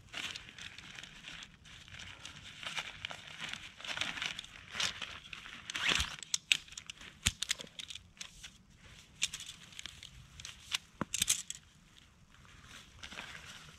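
Nylon stuff sack rustling and crinkling as a bundle of folded aluminium tent poles is drawn out of it and set down, with scattered sharp clicks of the pole sections knocking together, most of them in the middle stretch.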